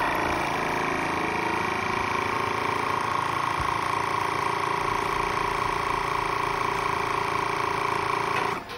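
Vacuum sealer's pump running steadily as it sucks the air out of a bag of scallops, a steady hum with a whine in it, cutting off suddenly near the end once the bag is drawn down.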